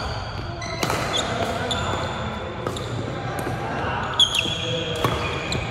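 Badminton shoes squeaking on a wooden gym court, several short high squeaks, with a few sharp cracks of rackets striking the shuttlecock during a doubles rally.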